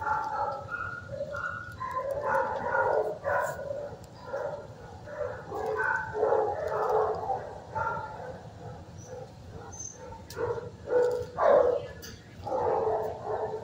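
Many shelter dogs barking at once in the kennels, a continuous overlapping din of barks with a few louder ones near the end.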